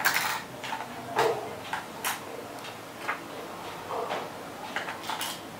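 Rechargeable AA cells clicking and knocking as they are pushed one by one into the battery compartment of a Shanny SN600N speedlite: about six separate sharp clicks, roughly a second apart.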